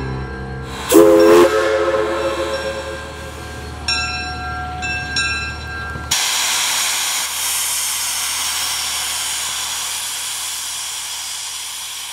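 Steam locomotive whistle: one loud low chord about a second in, then short, higher-pitched toots. After that comes a steady hiss of escaping steam that starts suddenly and slowly fades.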